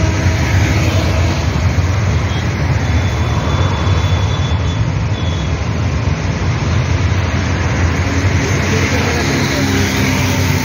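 Road traffic: a steady low rumble of cars and a bus passing close by on a busy road.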